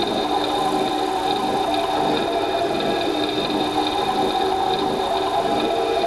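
Harsh noise music from small amplifiers: a dense, unbroken wall of buzzing electronic noise with several held droning tones, steady throughout.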